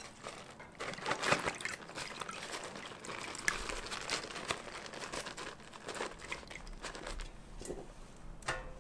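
A white stock bag crinkling and rustling as it is handled and filled with soaked glutinous rice poured from a steel measuring cup, a run of small rustles and light clicks.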